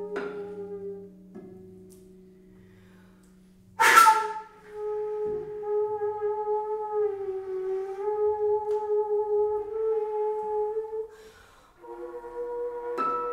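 Flute playing a slow contemporary classical passage. A low held tone dies away to near quiet, then a sharp, breathy accent about four seconds in opens one long sustained note that sags slightly in pitch midway before fading. New held notes begin near the end.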